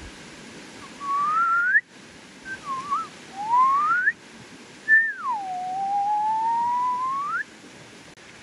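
A person whistling a few sliding notes: three short rising whistles, then one long whistle that drops and slowly climbs back up.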